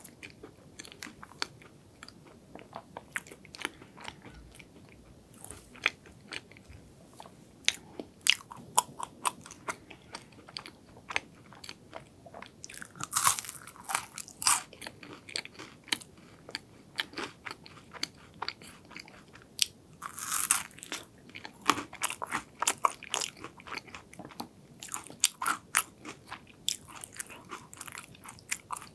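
Close-miked chewing and crunching of chocolate cake and Ferrero Rocher chocolates: a steady run of small crisp clicks, with two louder crunching bites about 13 and 20 seconds in, the crunch of the wafer shell and hazelnut.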